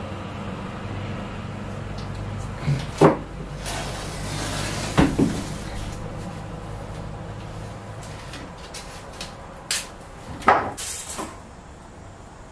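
Handling noises on the floor of an empty metal van cargo area as painter's tape is laid and measured: a few sharp knocks and clacks, loudest about three seconds and ten and a half seconds in, with a short rasping noise in between, over a steady low hum.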